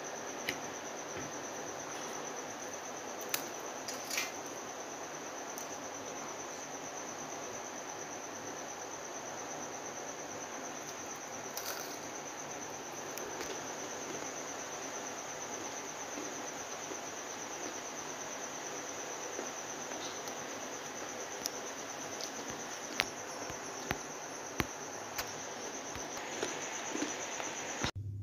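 Insects trilling: one steady, high-pitched trill over an even background hiss, with a few light clicks scattered through. The sound cuts off abruptly just before the end.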